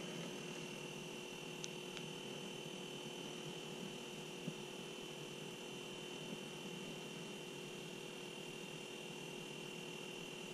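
Faint, steady electrical hum with a thin high whine, and a few faint ticks.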